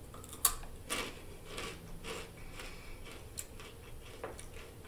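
Biting and chewing a crunchy Takis Fuego rolled tortilla chip: one sharp crunch about half a second in, then a run of fainter crisp crunches as it is chewed.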